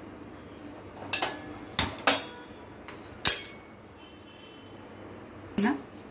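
Stainless-steel pots and utensils clinking and knocking as they are handled: four sharp separate clinks in the first few seconds.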